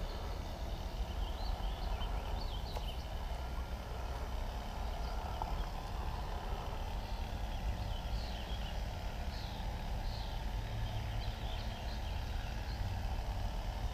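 Steady low outdoor rumble, with short high chirps scattered through it.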